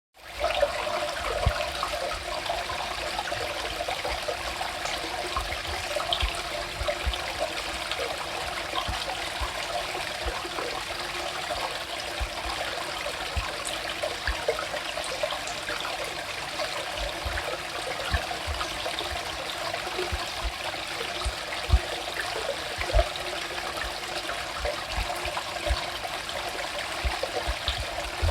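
River water flowing, a steady continuous noise, with occasional brief low bumps underneath.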